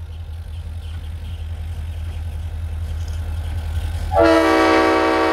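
Diesel locomotive approaching with a steady low engine rumble that grows louder. About four seconds in, its Nathan AirChime RS5T five-chime horn sounds a loud chord.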